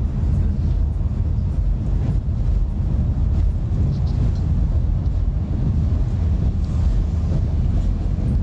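Steady low rumble of a bus's engine and tyres on the road, heard from inside the cabin.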